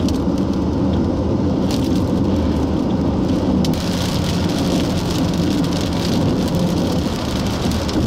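Rain on a moving vehicle, over a steady low rumble of road and wind noise. A couple of brief clicks come in the first few seconds, and from about four seconds in the rain hiss grows louder.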